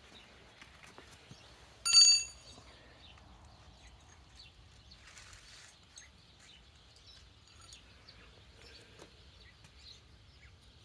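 Faint outdoor background with one short, ringing metallic clink about two seconds in.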